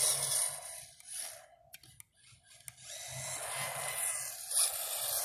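HSP RC drift car's 3300kv brushless electric motor whining with tyre hiss on asphalt. The car fades away to near silence for about a second, then comes back louder as it approaches.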